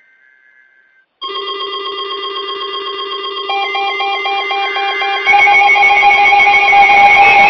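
Weather alert radios going off for a tornado warning: a faint burst of digital alert-header tones, then about a second in several radios' alarms start at once as steady tones. A fast beeping alarm joins a couple of seconds later, and the combined alarm steps up in loudness near the end.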